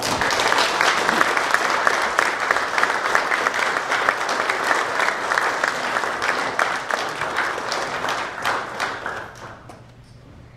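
Audience applauding, many hands clapping. It starts all at once, holds steady, and dies away about nine seconds in.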